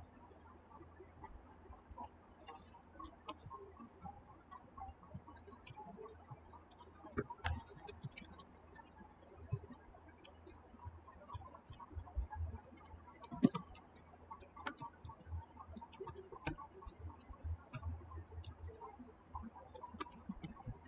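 Faint, irregular clicking of a computer keyboard being typed on, with mouse clicks, over a low steady hum.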